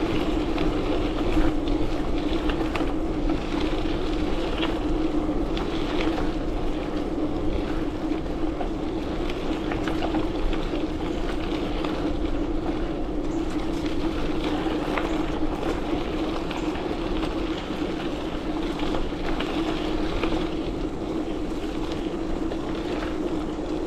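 Riding noise from a bike on a trail: a steady hum under a noisy rush, with frequent rattles and knocks as it goes over rough ground.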